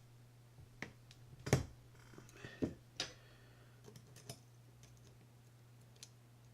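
A handful of sharp, scattered metal clicks and taps as small tools pry the C-clip off a Shimano Citica 200D baitcasting reel's worm-gear assembly; the loudest click comes about a second and a half in.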